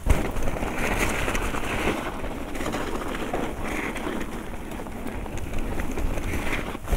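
Mountain bike riding down a snow-covered trail: the tyres hiss and crunch through snow and the bike rattles over bumps, with a hard jolt at the very start. Several short high squeaks come from the squeaky brakes, spread through the ride.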